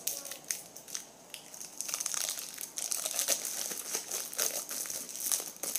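Plastic food wrapper being crinkled and handled, a run of sharp crackles that gets busier about two seconds in.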